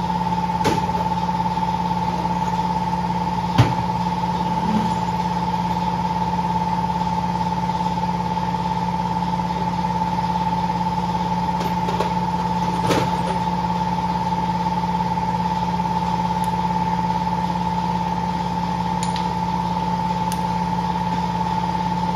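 A steady machine hum, an electric motor or compressor running, with a few sharp metallic clicks of hand tools on engine parts, the loudest about three and a half seconds in.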